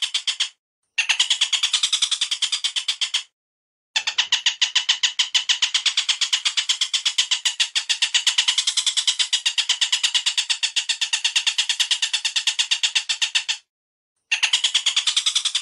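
Recorded bird calls played as a masteran song-tutor track for caged songbirds: a fast, even chatter of sharp repeated notes, several a second, in bursts that cut off suddenly. There are brief silences about half a second in, at about three seconds and near the end.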